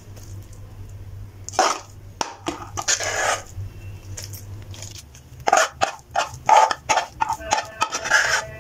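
Metal spoon scraping and knocking against a steel pan and plate as the cooked grated-potato mixture is scooped out. Irregular scrapes and clinks, busiest about two seconds in and again over the last few seconds.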